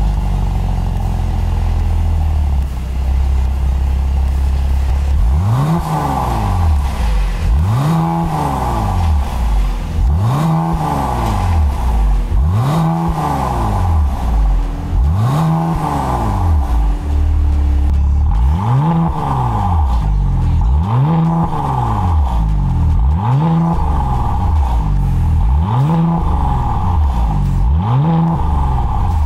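Mercedes-AMG C43's twin-turbo V6 through a Fi Exhaust valvetronic cat-back system, idling and then revved in repeated short blips, each rising and falling in pitch, about one every two and a half seconds with the exhaust valves closed. From about halfway, with the valves open, the blips come quicker, about one every second and a half.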